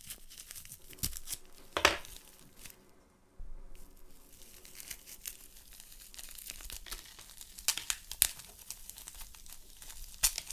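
Thin plastic wrapping being slit with a utility knife, then torn and crinkled open by hand, in a run of sharp crackles and rustles with the loudest snaps about two seconds in and around eight seconds.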